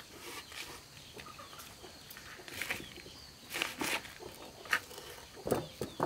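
Chickens clucking in short, scattered calls, several coming louder in the second half.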